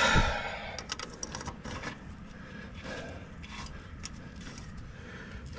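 Scattered metal clicks, knocks and scrapes from hand work on a tractor's parts, with a louder scrape and thump right at the start.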